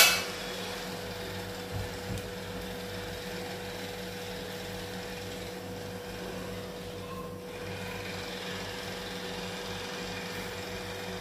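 A single sharp tap at the very start, then a steady low hum with a faint even hiss and a constant pitched tone underneath, unchanging throughout.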